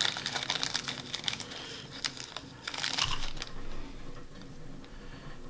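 Fingertips handling and pulling apart strands of synthetic Ice Dub dubbing: a quick run of light crackling clicks and rustles for about three and a half seconds, then fainter rubbing.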